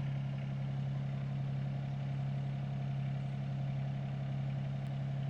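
Excavator's diesel engine running steadily at idle, a constant low hum with no revving.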